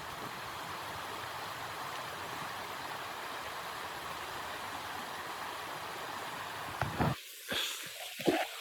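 Steady rushing noise, broken near the end by a couple of sharp knocks and brief cut-outs.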